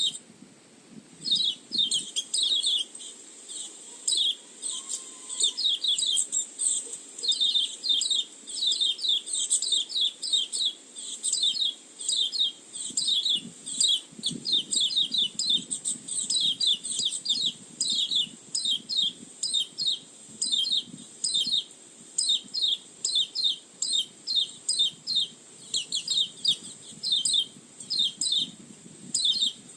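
White-eye (pleci) lure call: rapid runs of short, high chirps repeated with barely a break.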